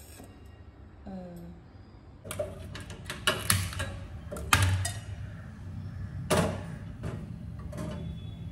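Aluminium cooking pots and utensils clanking and knocking as a pot of rice is handled and set down on a gas stove's burner grate, with several sharp knocks over a few seconds.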